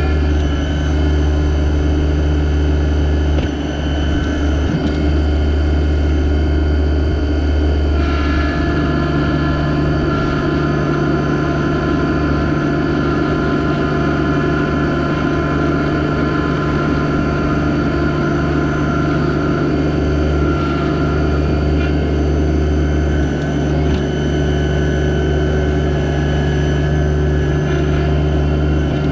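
Yanmar SA324 compact tractor's three-cylinder diesel engine running steadily, with a slight change in its tone about eight seconds in.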